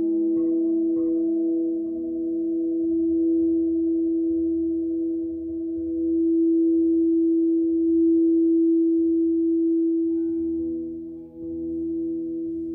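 Frosted quartz crystal singing bowls sounding a sustained, steady tone with a slow pulsing waver, kept ringing by a wand held at a bowl's rim. The sound dips briefly in loudness near the end.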